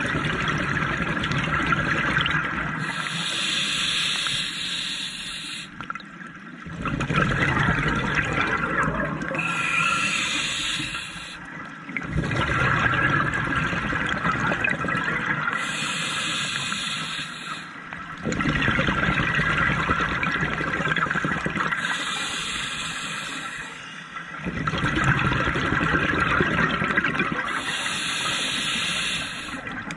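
Scuba diver breathing through a demand regulator: a hissing inhale followed by a gurgling rush of exhaled bubbles, repeating about every six seconds, five breaths in all.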